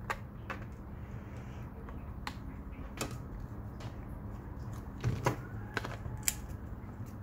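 Hard plastic being handled: scattered small clicks and knocks as a cable connector is pushed into a 3D-printed battery box and the box is turned in the hands, with a cluster of louder knocks about five seconds in as a Bosch glue gun is fitted onto the case. A steady low hum sits underneath.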